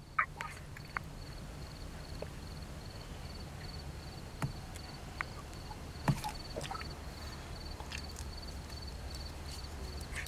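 Crickets chirping in a faint, rapid, even trill over a steady low hum, with a few scattered small clicks and a sharp click at the very end.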